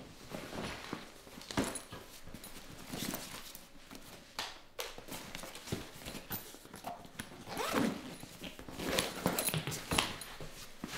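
Irregular rustling and shuffling of cloth being handled, with light knocks and clicks, as clothes are sorted and packed.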